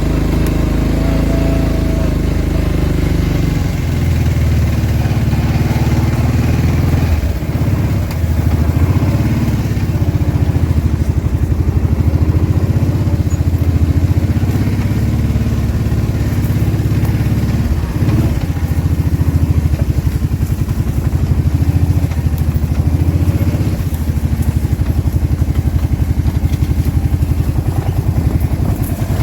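Four-wheeler (ATV) engine running while riding, its pitch dipping and rising a few times.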